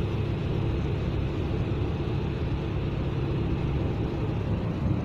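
Steady low road and engine drone inside the cabin of a moving passenger van.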